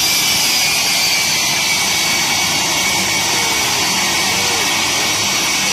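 Truck-mounted jet engine running steadily: a loud, even roar with high turbine whine tones that sink slightly in pitch.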